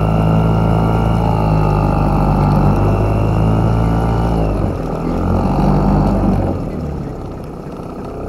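Toyama 2.6 hp outboard motor running steadily at part throttle. About halfway through its note drops, picks up briefly, then the engine dies away about two-thirds of the way in, leaving a quieter hiss.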